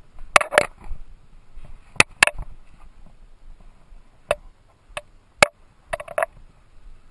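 Sharp rustling clicks and scrapes of riding gloves being pulled on and handled close to a helmet-mounted camera, about eight separate strokes, some in quick pairs.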